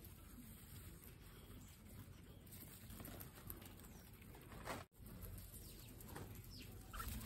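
Guinea pigs munching fresh grass, faint crunching and rustling, with a few faint short chirps near the end.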